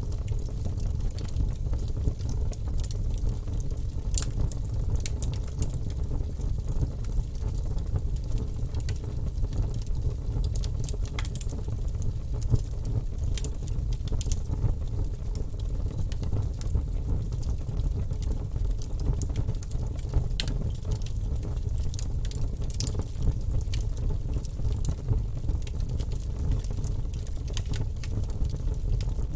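Wood fire in a fireplace crackling, with irregular sharp pops over a steady low rumble of the burning.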